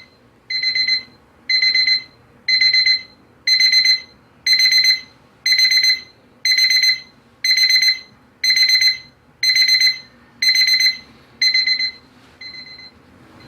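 Smart radio alarm clock's wake-up alarm beeping in short bursts about once a second, growing louder over the first few seconds as the alarm volume rises progressively. Near the end the bursts cut short as snooze is pressed.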